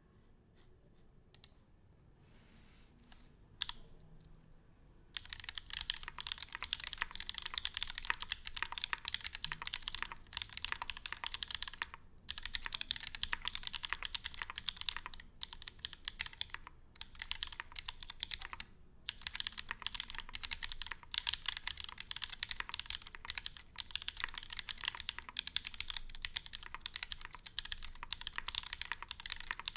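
Duck Viper V3 mechanical keyboard with lubed and filmed vintage Cherry MX Black linear switches on a POM plate, with GMK keycaps, being typed on. A couple of single keystrokes come first, then rapid continuous typing from about five seconds in, broken by a few brief pauses.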